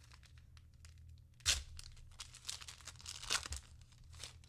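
Trading-card pack wrapper being torn open and crinkled, with the sharpest tear about a second and a half in and further crinkling tears after it.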